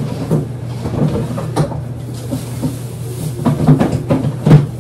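Apples being fetched and handled: a string of short knocks and bumps, the loudest near the end, over a steady low hum.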